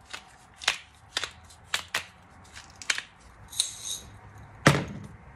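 Irregular light clicks and taps of a black pepper shaker being shaken over fish fillets on a plate, with a louder knock near the end.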